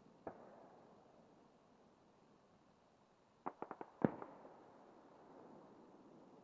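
Distant fireworks going off: a single sharp bang just after the start, then about three seconds later a quick run of four cracks followed at once by the loudest bang, which rings on briefly.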